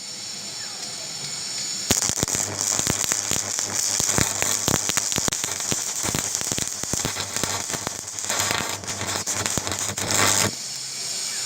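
An 80-amp electric arc welder welding: a dense crackling, sizzling arc with a low steady hum underneath. It strikes about two seconds in and stops near the end.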